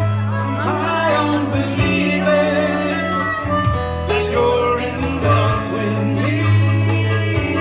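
A man singing live with an electronic keyboard, over long held low bass notes that change every second or two.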